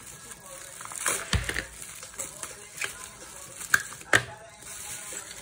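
Clear plastic wrapping crinkling and crackling as it is pulled open by hand, with two sharp crackles close together about four seconds in.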